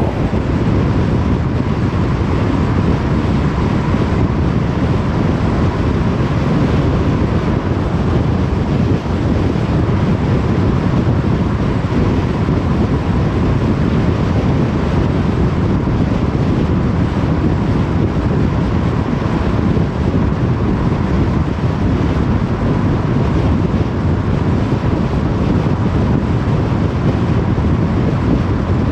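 Car driving at motorway speed: a steady rush of tyre and wind noise with a faint, steady high tone.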